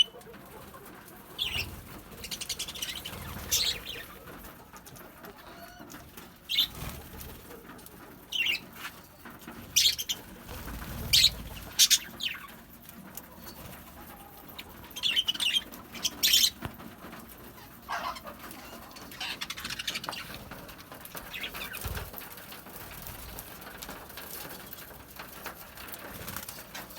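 Lovebirds giving short, shrill high chirps at irregular intervals, some in quick runs, with softer dove-like cooing and wing flutters in between.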